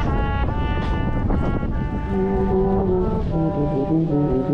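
Music with brass instruments playing a melody of held notes, moving to lower, shorter notes about two seconds in, over a low background rumble.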